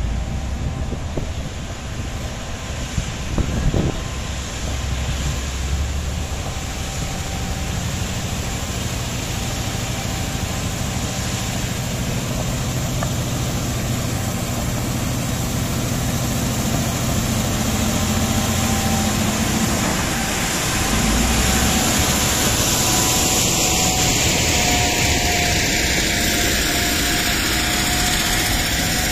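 Komatsu D155A bulldozer's diesel engine running as the machine works, with a steady whine over the engine hum and a brief thump about four seconds in; the engine grows louder about two-thirds of the way through.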